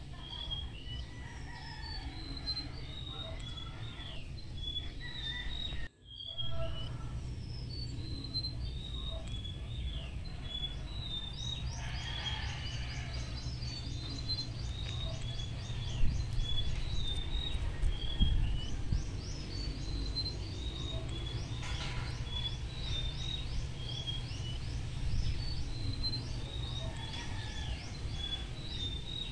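Birds chirping: repeated short high calls throughout, with fast runs of high notes in the middle and near the end, over a steady low hum. The sound drops out briefly about six seconds in.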